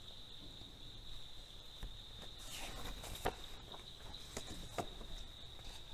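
A quiet pause filled by a faint, steady high-pitched trill or whine. A few soft clicks and a short rustle come through about midway.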